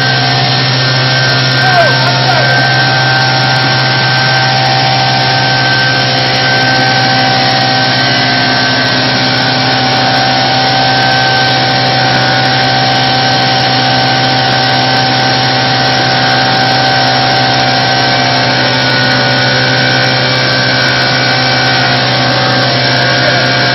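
Walinga UltraVeyor UV60 pneumatic grain conveyor, driven by a 50 hp motor, running steadily under load as seed grain is fed into its intake hopper. The sound is a loud, even drone with a steady whine on top.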